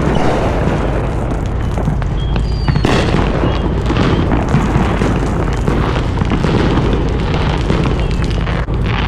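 Fireworks going off in a dense, continuous barrage of booms and crackling that keeps up without a break; described as far away, but loud.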